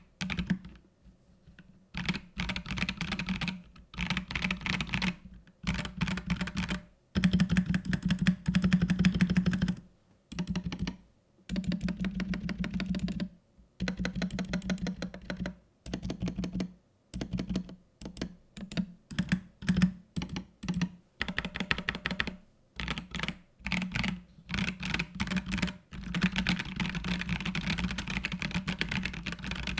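Mechanical keyboard with Gazzew Boba U4T tactile switches being typed on in bursts of rapid keystrokes, with short pauses between runs. A louder, denser run of typing comes about seven to ten seconds in.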